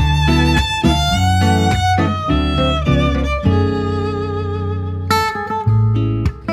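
Background music: a bowed-string melody over guitar with a steady bass line.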